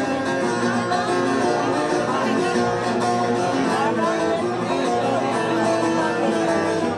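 Bağlama (Turkish long-necked saz) strummed continuously by hand, playing the instrumental passage of a Turkish folk song (türkü) between sung verses.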